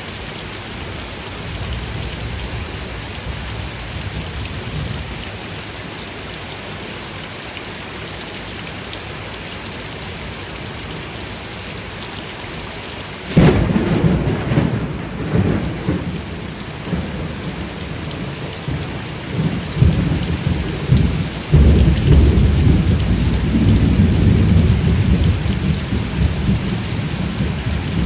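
Steady rain falling, then a sharp thunderclap about halfway through, followed by long rolling thunder rumbling under the rain.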